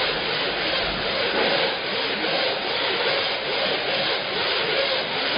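Two ski-ergometer trainers worked hard in double-pole pulls, their air-resistance flywheels making a loud whooshing noise that surges with each pull.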